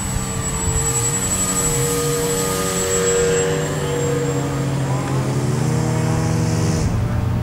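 Motor and propeller of a large radio-controlled P-47 Thunderbolt warbird model droning in flight, the pitch wavering as the throttle and distance change. It cuts off suddenly near the end.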